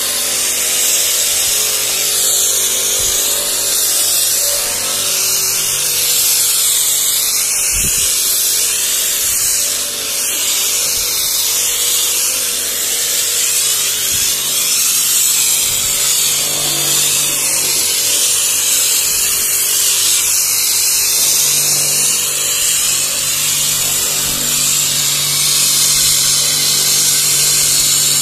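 StarQ W3 electric pressure washer running steadily, its motor and pump humming under a loud hiss of spray as it pushes thick foam out through a foam cannon.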